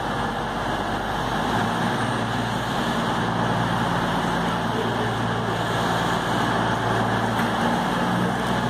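CrossCountry Voyager diesel multiple unit drawing slowly into the platform, its underfloor diesel engines giving a steady low hum over wheel and track noise. The engine hum grows firmer about a second and a half in.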